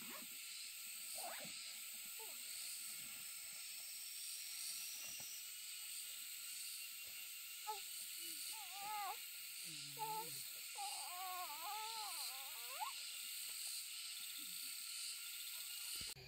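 Steady high-pitched outdoor background hiss, with a few short wavering calls near the middle.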